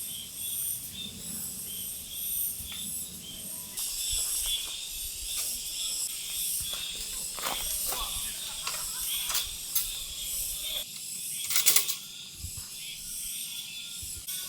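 Insects chirring steadily in high-pitched pulses, with gusts of wind rumbling on the microphone that die down about eleven seconds in. Occasional sharp clicks and knocks of handling.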